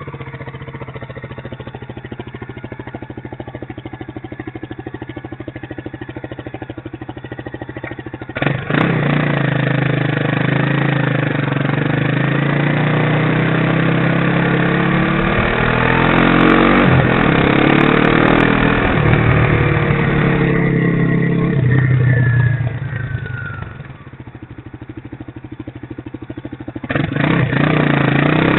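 Motorcycle engine ticking over at a steady, low idle, then opening up about eight seconds in as the bike pulls away, its pitch rising and falling as it speeds up and shifts. It eases off for a few seconds and picks up again near the end.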